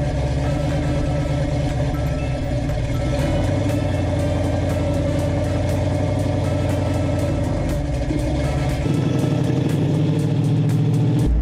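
A vehicle engine running steadily, with background music playing over it.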